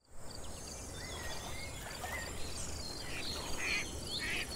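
Outdoor bird ambience: assorted short whistled calls, joined in the second half by harsher raspy calls about once a second, over a steady low background rumble.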